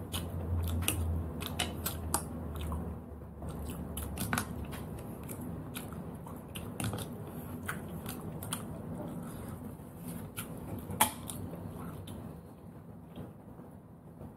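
Close-up eating sounds: cooked sea snails being picked from their shells with a toothpick and chewed, with irregular small clicks of toothpick and shell and a louder click about eleven seconds in.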